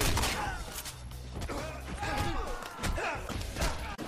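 Film fight-scene sound: a series of sharp blows and thuds with short voiced shouts, over music.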